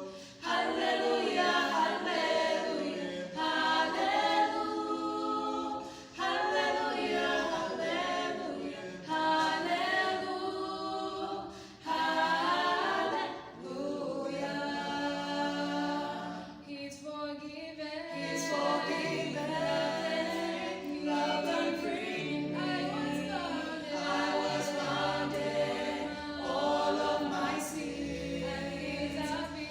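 A choir singing a Christian praise song a cappella, several voices together in phrases with short breaks between them.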